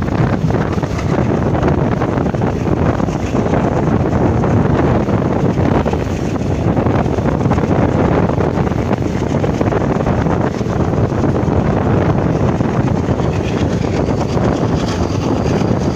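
Steady wind buffeting the microphone at the open door of a moving passenger train, over the train's continuous running rumble on the track.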